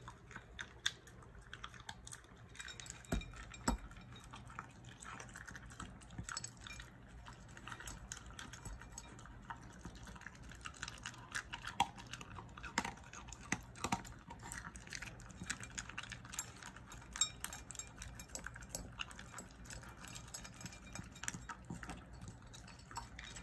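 A Shiba Inu eating dry kibble from a slow-feeder bowl: a run of quiet, irregular crunches and clicks as it chews.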